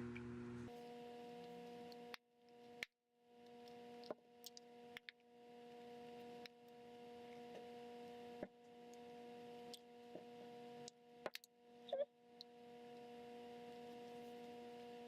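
Near silence with a faint steady hum, broken by a dozen or so small, sharp clicks and taps at irregular intervals as the iPhone 5's screen assembly is pressed and forced back down into its frame.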